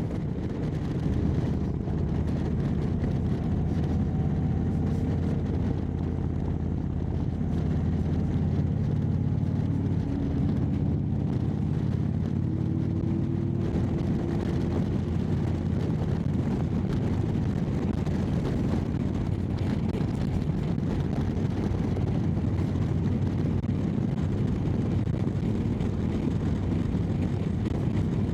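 Indian Chieftain Dark Horse's V-twin engine running through its Freedom Performance exhaust on the road, its exhaust leak freshly sealed with a new gasket. The pitch rises a few times in the first half as the bike accelerates, then the engine holds steady at cruising speed.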